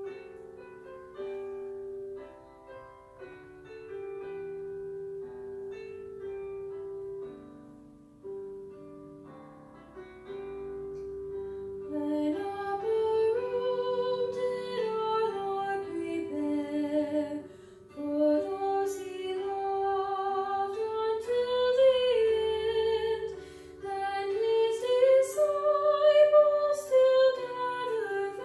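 A hymn with keyboard accompaniment: the keyboard plays the introduction alone for about twelve seconds, then a woman's voice comes in singing the first verse.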